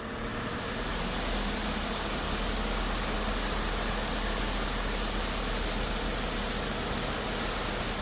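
Steady hiss of steam venting from a car's engine bay, swelling in over the first second, with a faint low hum beneath.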